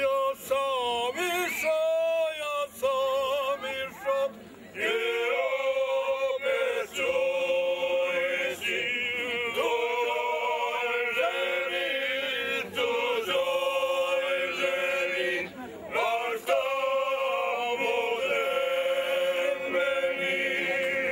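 Traditional Bosnian ojkača sung a cappella by five men. A single voice opens with a wavering, shaking pitch. About five seconds in the others join on long held chords, in phrases broken by short breaths and re-entries.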